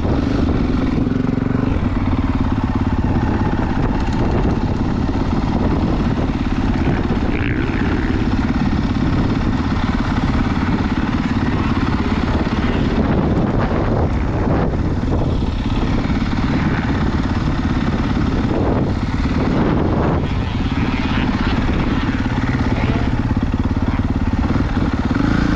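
Dirt bike engine running steadily.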